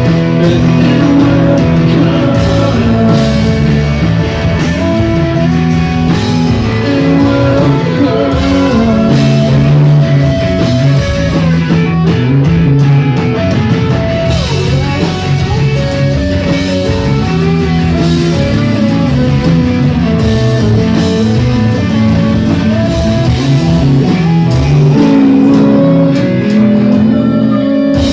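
Live rock band playing loudly, with guitar to the fore.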